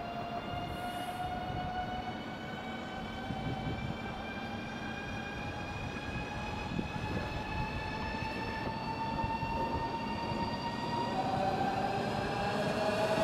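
Electric train approaching, a rumble of wheels on the rails under a whine of several tones that slowly rises in pitch, growing louder as it nears.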